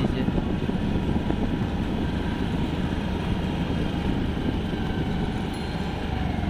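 Steady low rumble of road and wind noise from a moving vehicle, with a faint falling whine near the end.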